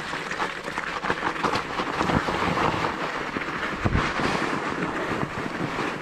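Mountain bike rolling downhill over loose stones and then snow: a steady crunching rattle of the knobby tyres and the bike, with dull thumps from bumps about two and four seconds in.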